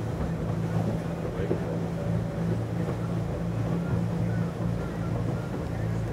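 Water taxi's engine running steadily under way, a constant low drone, with the rush of water along the hull and wind over the open deck.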